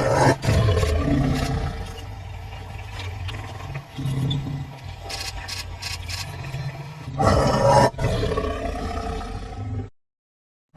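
A large wild animal roaring, loudest just after the start and again about seven seconds in, with lower rumbling calls in between; the sound cuts off to dead silence for the last second.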